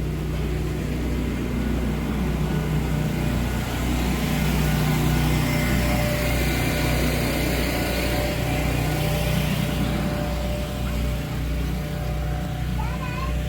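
An engine running steadily with a low, even hum, and a rushing noise that swells and fades about four to ten seconds in.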